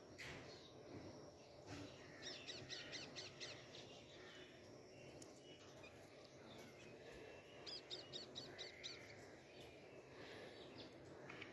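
Faint outdoor background with a bird calling: two quick runs of about six high repeated notes, a little after two seconds in and again near eight seconds.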